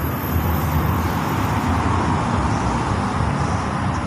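Steady road traffic noise from a busy main road, swelling as a vehicle passes close by around the middle.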